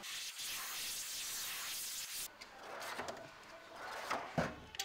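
A steady hiss for about two seconds, then metal tools clinking and a tool chest drawer sliding, with a knock near the end.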